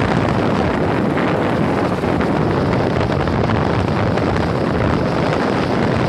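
Steady, loud wind buffeting the microphone of a moving motorbike, with the bike's running noise beneath it.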